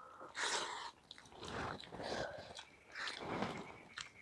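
Close-miked chewing and smacking of rice and fish curry eaten by hand, coming in three noisy surges.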